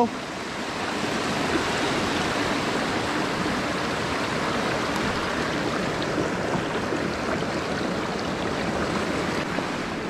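Small mountain creek rushing over rocks and riffles: a steady, even flow of water.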